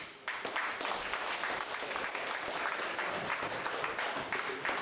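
Audience in a hall applauding, the clapping starting about a quarter second in and keeping up steadily.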